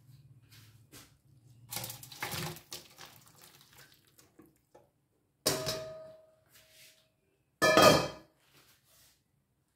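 Cooked pork and cabbage being tipped and scraped from a wok into a stainless steel tray: soft clatter and sliding, then two ringing metal clanks, one about halfway through and a louder one near the end.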